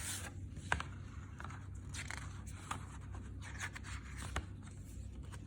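Hands handling CD packaging and its paper inserts: light scraping and rustling with a few sharp clicks, over a steady low hum.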